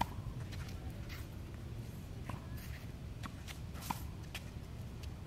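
A tennis racket striking the ball twice, a sharp pop right at the start and another about four seconds in, with fainter pops in between. A steady low rumble runs underneath.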